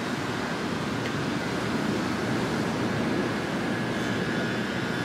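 Steady rushing noise of ocean surf and wind, even and unbroken.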